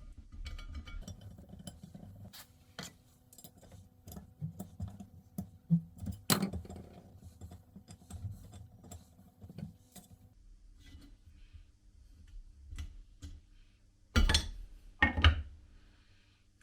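Small metal parts clinking and tapping during hands-on rifle restoration work, with a sharper knock about six seconds in and two louder, longer scrapes near the end.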